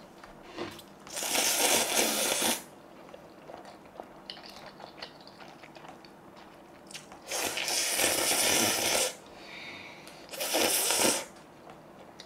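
Instant noodles being slurped: three long, loud slurps of one to two seconds each, with faint clicks of chewing between them.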